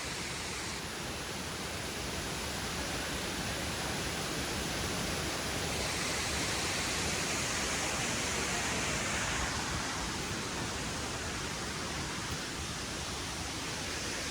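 Steady rushing of a tall waterfall with a drop of over 70 metres, a little louder in the middle.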